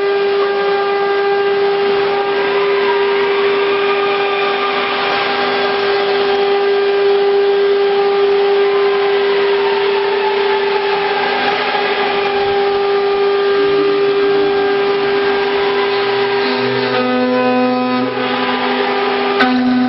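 4-axis CNC router running: a steady, high spindle whine over motor noise, with extra lower motor tones coming in and changing pitch during the last few seconds as the axes move.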